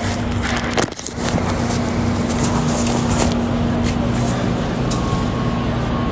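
Steady machinery noise with a constant hum and scattered clicks and knocks, dipping briefly about a second in.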